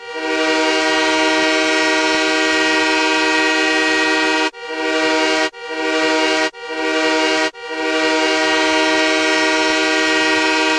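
The Montreal Canadiens' old arena goal horn, as used in 1997, sounding a goal: one long blast, three short blasts about a second each, then another long blast. Each blast swells up as it starts.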